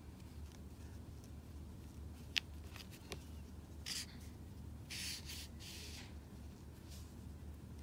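Yarn and a crochet hook being worked: soft rustling and rubbing, a sharp click a little over two seconds in, over a steady low hum.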